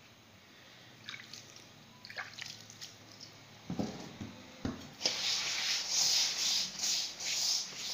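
Hands rubbing and working moistened semolina in a stainless steel bowl, with two soft thumps, then from about five seconds in a rhythmic gritty rustle at about two strokes a second as the grains are rubbed between the palms to take up the water and olive oil.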